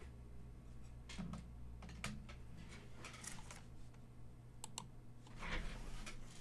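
Faint, scattered clicks and taps of plastic trading-card holders and cases being handled, with a louder rustle and scrape about five and a half seconds in as a card in a thick clear plastic holder is picked up.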